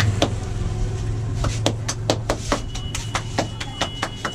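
A barber's hands striking a man's head in quick, even percussive strokes, about four to five a second, as part of a head massage. The strokes start about a second and a half in, over a low hum that fades away.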